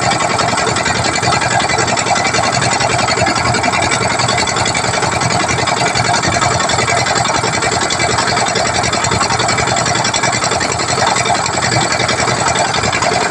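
Small boat engine running at a steady speed with a fast, even chatter.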